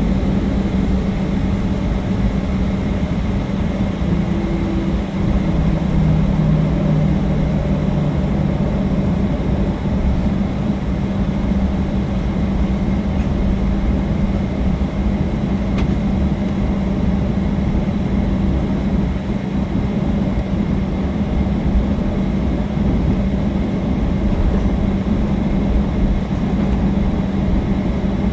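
Steady cabin noise inside a Boeing 737-800 taxiing after landing: its CFM56-7B jet engines running at idle, heard as a low, even hum over a broad rumble. A second, lower tone joins the hum for a few seconds about five seconds in.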